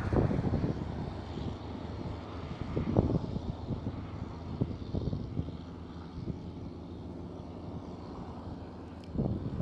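Heavy truck's diesel engine running steadily under load as it pulls uphill, with a few sharp knocks and rattles, the loudest about three seconds in and near the end.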